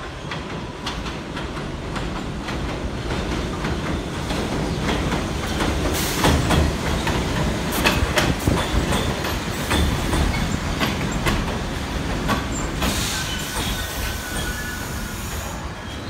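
R68 subway train arriving on elevated steel track. Its running noise builds as it comes in, with wheels clacking over rail joints, and is loudest about six to eight seconds in as the cars roll past. A high wheel squeal comes in near the end as it slows.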